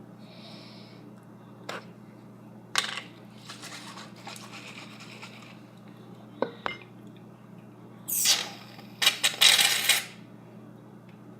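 A few sharp clicks and taps as the cap is worked off an aerosol can of shaving cream, then the can hissing in two loud spurts near the end as foam is sprayed out.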